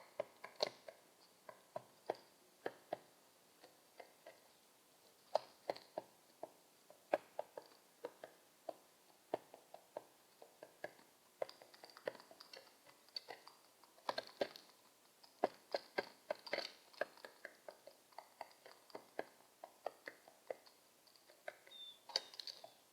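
Pigeon pecking seed from a hard surface: a run of irregular sharp taps and crunches, two to four a second.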